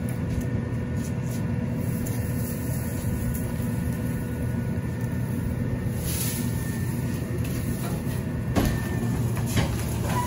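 McNeilus rear-loader garbage truck on an Autocar ACX chassis idling steadily while brush is thrown into its hopper. There is a brief knock near the end.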